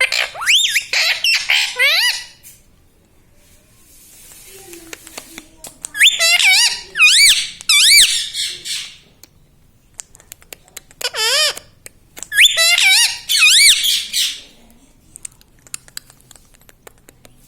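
Indian ringneck parrot chattering in a high, warbling voice, in four bursts with pauses between them.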